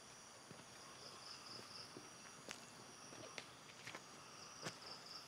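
Faint night insects trilling in a steady, pulsing high chorus, with a few scattered sharp taps in the second half.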